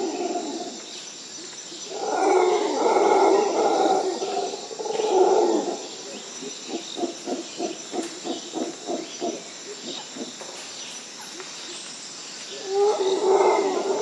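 Deep, rough roaring calls from a large animal: a long roar about two seconds in and a shorter one a few seconds later, then a run of short grunts at about three a second, and another roar near the end. A steady high hiss runs underneath.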